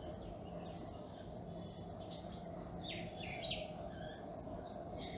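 Faint birds chirping in short, scattered calls, most of them a few seconds in, over a steady low room hum.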